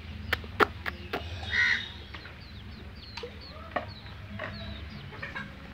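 Birds chirping and calling, many short quick chirps with one louder call early on, over a steady low hum. Four sharp knocks in the first second or so are the loudest sounds.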